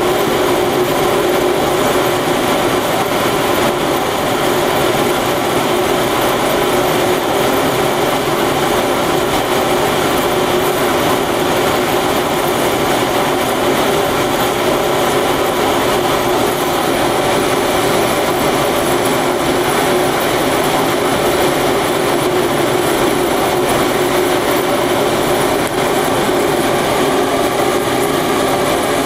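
Cremation furnace's burner and blower running steadily while the chamber fires: a constant rushing noise with an even hum that does not change.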